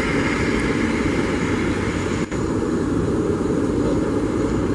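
Steady rumble of jet airliner engines, with a brief dropout a little over two seconds in.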